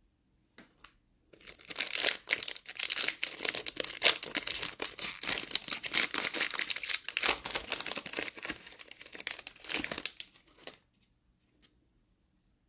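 A foil trading-card pack being torn open and its wrapper crinkled, a dense crackling rustle that starts about a second and a half in and stops about two seconds before the end.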